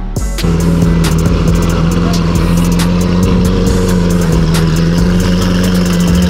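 Lamborghini Aventador's V12 engine starting about half a second in, then idling steadily. It is run after a coolant line replacement so the cooling system can be bled.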